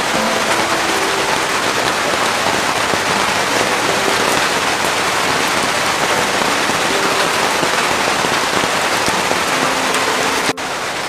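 Steady heavy rain: a dense, even hiss with no breaks. It drops sharply in level about half a second before the end.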